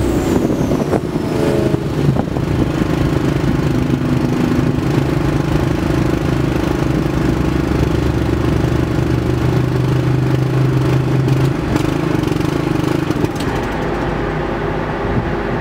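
454 big-block V8 running naturally aspirated on an engine dyno, pulling hard under load through a break-in run, then easing off near the end.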